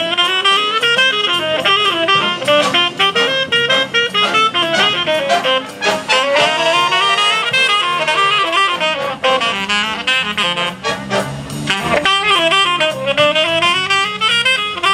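Jazz big band playing live, with a saxophone playing quick runs that climb and fall over the brass section.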